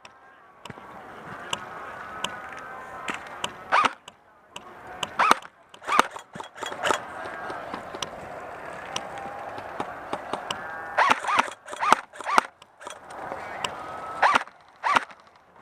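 Airsoft guns firing single shots at irregular intervals: sharp cracks scattered throughout, with faint distant shouting underneath.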